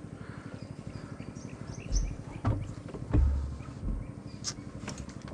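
Dull low thumps and knocks on a wooden boat, the loudest about three seconds in, followed by a couple of sharp clicks.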